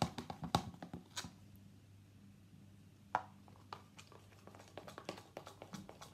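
Slime mixture of glue, shaving foam and hair conditioner being stirred in a bowl: scattered soft taps and clicks, busiest at the start and again near the end.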